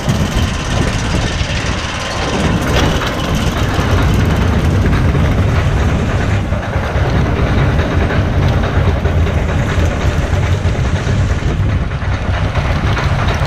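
Wild Mouse roller coaster car (Reverchon, 1999) being hauled up its chain lift hill: a steady, dense clattering rattle of the lift chain and the car's wheels on the steel track, over a continuous low rumble.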